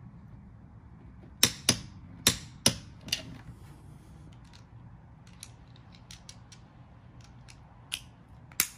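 A series of sharp mechanical clicks and knocks: four loud ones in quick succession about one and a half seconds in, then fainter scattered clicks, and one more loud click near the end.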